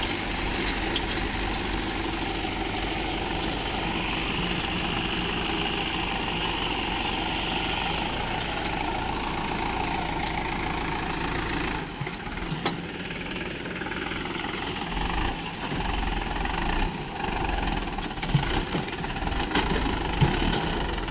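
Swaraj 843 XM tractor's three-cylinder diesel engine running under load while the tractor is stuck in loose sand with its trolley. The engine note is steady at first, then becomes uneven from about twelve seconds in, with a few sharp knocks near the end.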